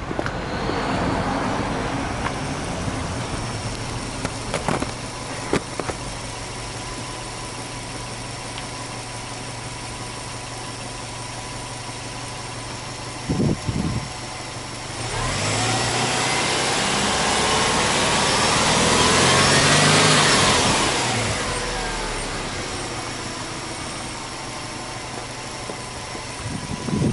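Subaru Impreza WRX STi's turbocharged flat-four boxer engine starting up and settling into a steady idle. About halfway through it is revved slowly up over several seconds and let fall back down, then idles again.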